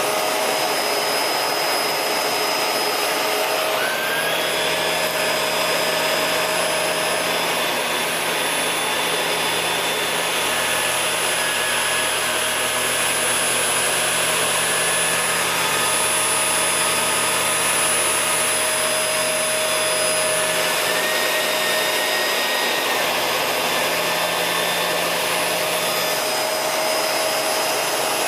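Shark Rotator vacuum cleaner running steadily with a whine, vacuuming spilled flour off a carpet. A lower hum joins the motor sound about four seconds in and drops away near the end.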